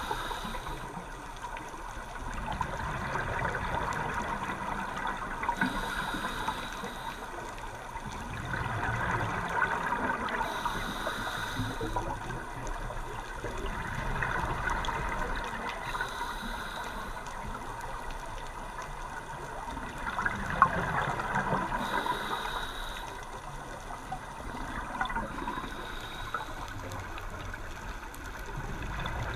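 A scuba diver breathing through a regulator underwater, heard through the camera housing. A short hiss of inhalation comes about every five to six seconds, and between them exhaled bubbles gurgle and rush.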